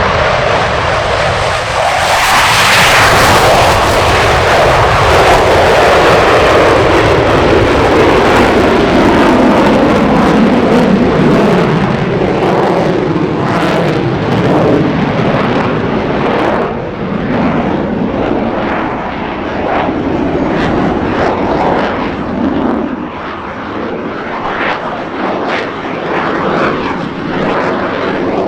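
Military jet aircraft flying past low and loud; the roar falls in pitch as it goes by, then continues as steady engine noise that fades slightly toward the end.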